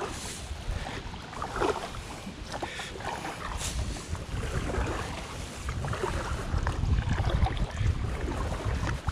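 Double-bladed kayak paddle strokes dipping and splashing in calm river water, with wind buffeting the microphone, heavier in the second half.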